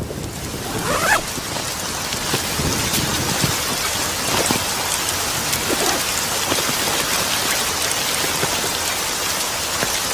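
Steady heavy rain falling, an even rushing patter.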